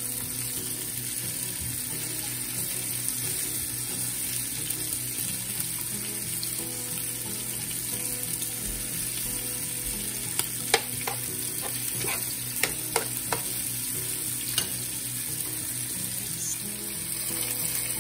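Thin-sliced ribeye steak, mushrooms and onions sizzling steadily in a frying pan. Metal tongs click against the pan several times about halfway through.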